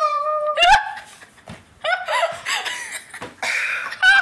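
Children laughing in several short bursts, opening with a high, drawn-out voiced cry.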